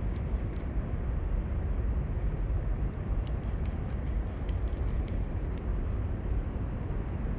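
Wind buffeting the microphone in a steady low rumble, with faint, scattered high ticks through the middle of it.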